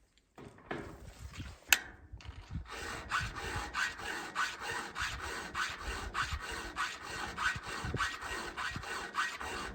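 Round file sharpening a chainsaw chain: a sharp click about two seconds in, then steady, even rasping strokes, about three a second.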